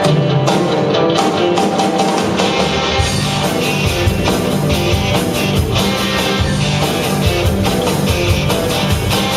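A rock band playing: an electric guitar part, with the bass and drums filling in the low end from about three seconds in.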